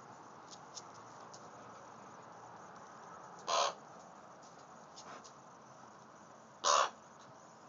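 A young crow cawing twice, two short harsh calls about three seconds apart.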